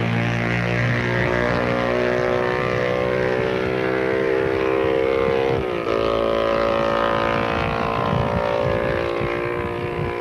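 Racing motorcycle engines running hard at high revs as bikes pass, the engine note falling slowly and then shifting abruptly about six seconds in.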